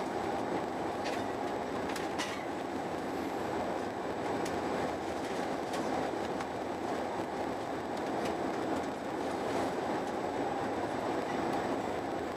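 Eurostar Italia high-speed train running at speed, heard from inside the passenger carriage: a steady rumble and rush, with a few faint clicks.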